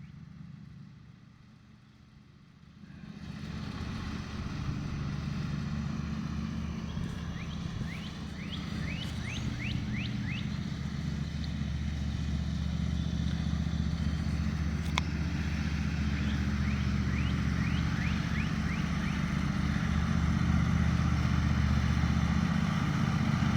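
Riding lawnmower engine running steadily while the mower drives and cuts grass, quieter for the first few seconds and then louder as the mower nears.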